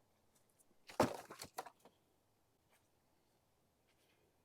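A short burst of several sharp cracks and knocks about a second in, lasting about half a second.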